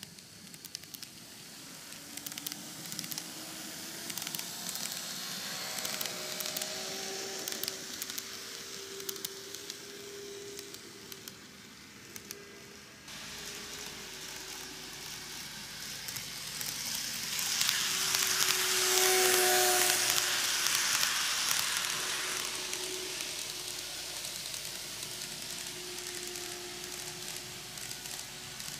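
KATO N-gauge model of a JR Shikoku N2000 series diesel railcar running on canted model track. Its wheels make a hissing rattle with quick clicks over the rail joints, under a faint hum from the motor. The sound swells and fades as the train passes, then swells again to its loudest and fades.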